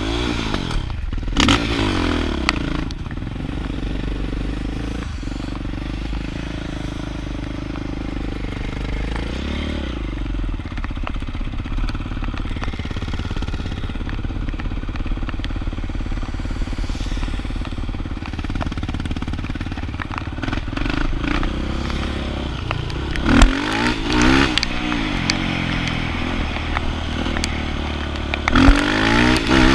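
Off-road vehicle engine running steadily, revved up and down about a second in and again several times in the last seven seconds.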